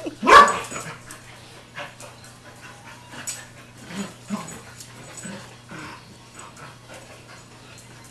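Two dogs, a German Shepherd/Chow mix and an American Bulldog mix, play-wrestling: one loud, short dog vocalisation about a third of a second in, then panting and scuffling at a lower level.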